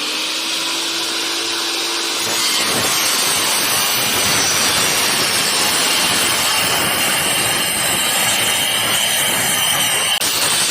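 Homemade table circular saw, a DC 795 motor spinning a 7-inch 60-tooth blade, whining steadily at speed and then cutting into a wooden board from about two and a half seconds in, the cut noise continuing steadily.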